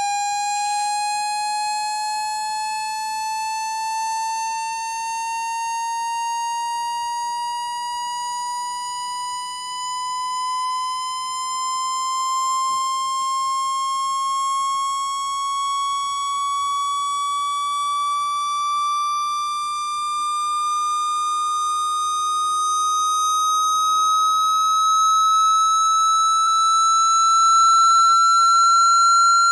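Synthesized speaker-cleaning tone, played to shake water or dust out of a phone speaker: a single buzzy electronic tone with a ladder of overtones, its pitch gliding slowly and steadily upward, growing a little louder near the end.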